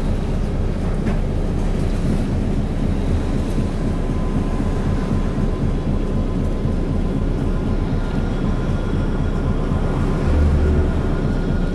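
Running sound of an Isuzu KC-LV380N one-step city bus under way, heard from inside the cabin: a steady diesel engine drone with road noise. A faint high whine joins about eight seconds in, and the low drone swells briefly about ten seconds in.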